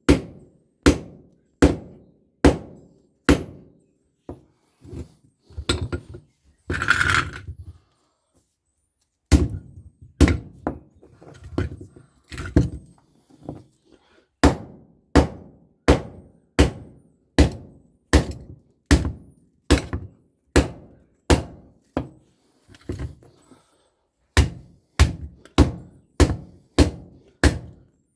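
Steady hammer blows on a microwave oven transformer, knocking the copper windings out of the core, about one and a half blows a second. They pause briefly partway, with a short scraping rattle, then carry on.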